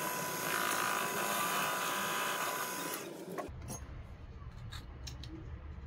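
Proxxon mini lathe running steadily with a whine and hiss as it takes a light cut on a rebar shaft. It stops about three seconds in and is followed by a few light clicks.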